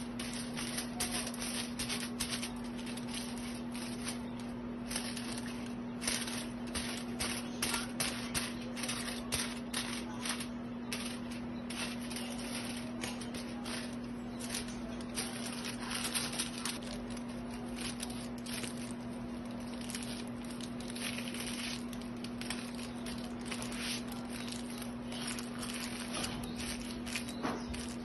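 Aluminium highlighting foils crinkling and rustling in quick, irregular bursts as they are handled and folded against the hair, over a steady low hum.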